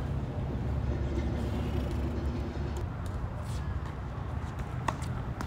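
Steady low outdoor rumble. About five seconds in comes one sharp knock of a tennis ball struck by a racket as the serve is hit.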